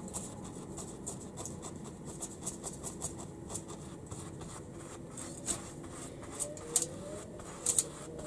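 Paintbrush scratching and dabbing paint onto a plaster-cloth riverbed, a quick run of short strokes, with a few sharper taps between about five and eight seconds in.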